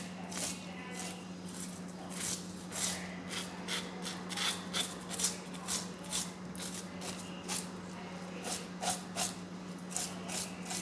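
Knife blade scraping the scales off a whole salmon on a cutting board, in quick repeated strokes of about three a second, with a short pause about a second in. A steady low hum runs underneath.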